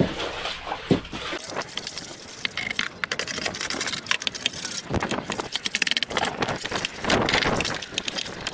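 Long-handled brush scrubbing the wet, mossy cockpit floor of a yacht: repeated scraping strokes with many small clicks and knocks.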